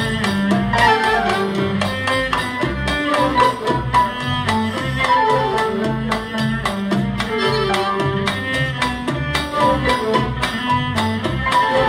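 Live Arabic orchestral music: an amplified cello leads, with the string section and percussion keeping a steady beat, the melody moving in repeated falling phrases.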